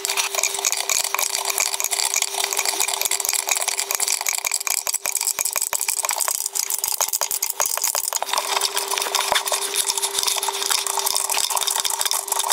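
Rapid metallic clicking and rattling as worktop connector bolts are tightened up from underneath the worktop joint, over a steady hum.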